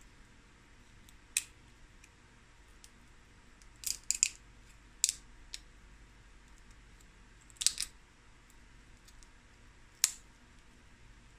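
Boiled crab leg shells snapped and cracked apart by hand: a handful of short, sharp cracks scattered a second or two apart, with a quick cluster of three or four about four seconds in.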